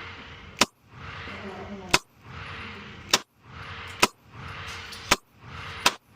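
Ruger RXM 9mm pistol fired in slow, steady single shots: six sharp reports about a second apart.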